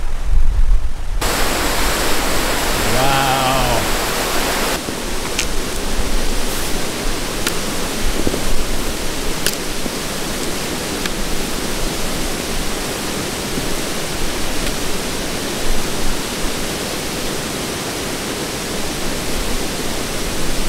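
Rushing water of a mountain brook cascading over rocks: a steady, even hiss that starts about a second in, with a few faint clicks.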